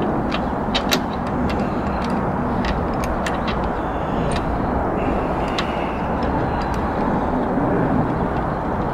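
Scattered sharp metal clicks of a socket wrench turning car wheel bolts in to hand tight, several in the first few seconds and a few more later, over a steady background rumble.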